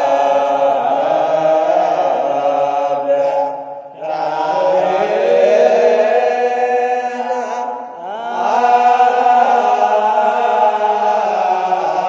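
Liturgical chant in Ethiopian/Eritrean Orthodox Tewahdo style: a voice sings long held, slowly gliding notes in three phrases of about four seconds each, with brief breaks between them.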